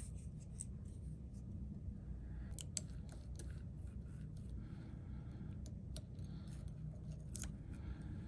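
Small hand tools clicking and scraping against a watch at irregular moments, with a few sharper ticks, over a steady low hum.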